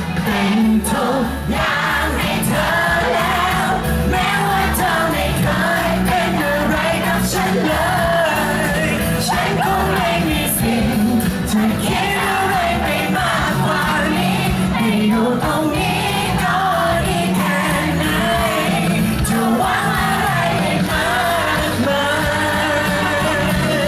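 Male pop singer singing live into a handheld microphone over a backing track with a steady beat.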